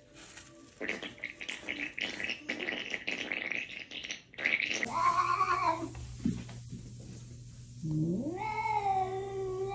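A cat scratching and digging in litter, a rapid rustling. Then a different cat, a Siberian, gives a short meow and, about eight seconds in, a long drawn-out yowl that rises at its start and then holds.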